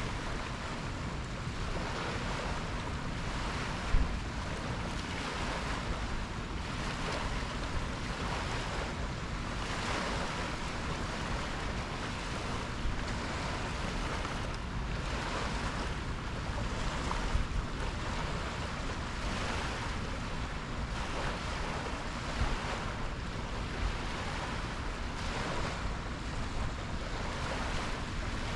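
Sea waves washing in continuous surges, with wind buffeting the microphone as a steady low rumble. A single brief knock about four seconds in.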